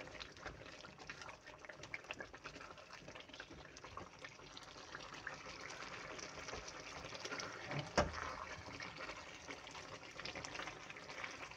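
Chicken karahi frying in oil in an aluminium karahi at the bhuna stage: a faint sizzle and crackle while a silicone spatula stirs and scrapes the pan. One sharp knock about eight seconds in.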